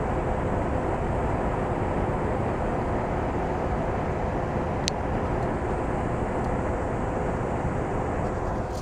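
Air rushing steadily out of a massive leak at a 10-ton Carrier packaged heat pump, with a steady hum from the running unit underneath. The rushing cuts off suddenly near the end.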